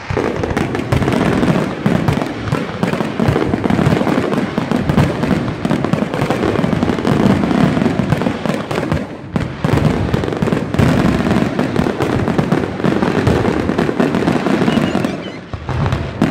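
Fireworks display: a dense, continuous barrage of bangs and crackling from shells bursting overhead, with a brief lull about nine seconds in and a slackening near the end.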